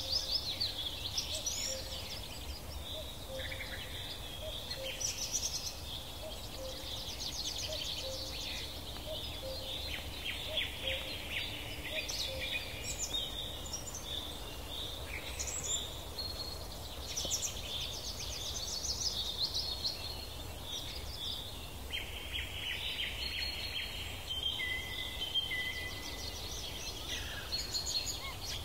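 Several songbirds singing at once: overlapping rapid trills and chirping phrases, over a low steady rumble.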